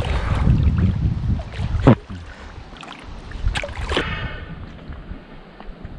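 Water sloshing and splashing close to the microphone, with a couple of sharp knocks, about two and three and a half seconds in, and a duller, quieter wash after about four seconds.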